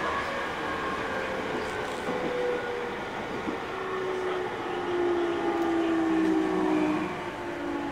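Running sound aboard a 209 series 500 subseries electric train with a Mitsubishi GTO VVVF inverter: the inverter and traction motors whine over wheel and rail noise. The whine's tones slowly fall in pitch, grow louder about five seconds in, and drop back near the end.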